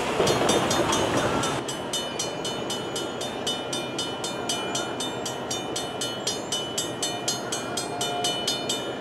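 Railroad grade-crossing bell ringing in rapid, even strokes, starting about a second and a half in; the crossing signal has been activated for an approaching train. A car drives across the tracks during the first second or so.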